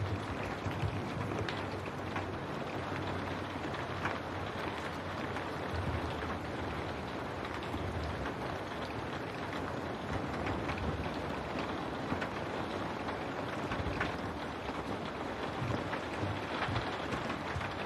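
Steady rain against window glass: an even hiss of rainfall with scattered drops ticking, over a low rumble.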